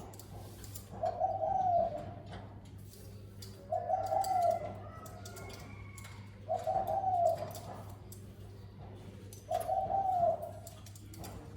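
Spotted dove cooing: four coo phrases, each under a second and rising then falling, about every three seconds, over a steady low hum.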